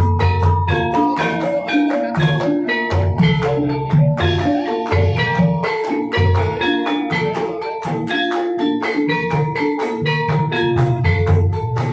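Gamelan ensemble playing a gendhing: fast, dense strikes on tuned mallet-struck metallophones over repeated deep low strokes.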